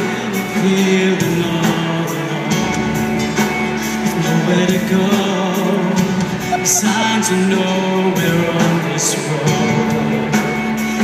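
Live music with singing, played loud and steady over the sound system of a large arena.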